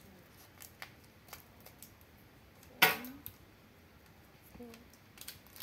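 Scissors cutting open a foil trading-card booster pack: a few light clicks of the blades, then one sharp snip through the wrapper a little under three seconds in.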